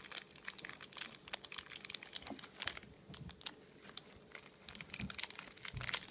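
Plastic toy packaging crinkling and crackling as it is handled, with a few soft thumps.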